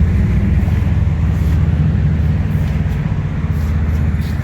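Steady low rumble with a hum, running without a break.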